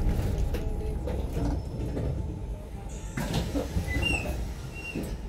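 Double-decker bus idling at a stop, heard from inside on the upper deck: a steady low engine rumble, with a short burst of hiss about three seconds in and a few brief high chirps near the end.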